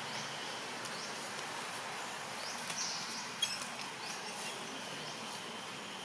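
Outdoor ambience: short, high, rising bird chirps a few times over a steady hiss, with a single sharp click about three and a half seconds in.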